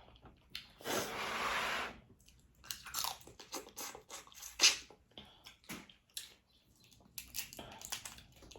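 Close-up eating of shellfish: shells cracking and snapping, with chewing and a second-long rush of noise about a second in. The sharpest crack comes about halfway through.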